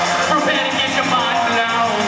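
Live music played loud through a concert PA, with a male singer's voice over the backing.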